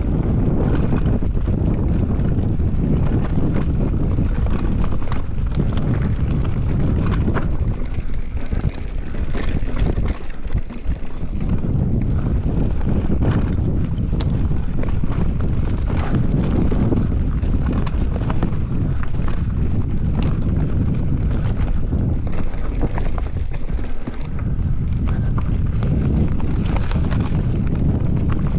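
Giant Reign mountain bike ridden fast downhill on a dirt trail: steady wind rush on the microphone and tyre noise, with frequent clicks and knocks as the bike rattles over bumps.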